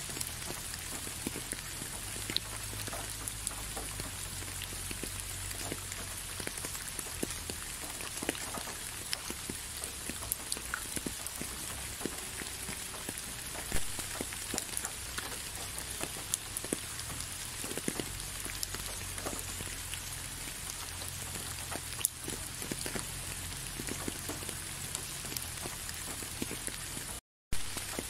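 Steady rain falling, an even hiss scattered with many single drops ticking close by. The sound cuts out for a moment near the end.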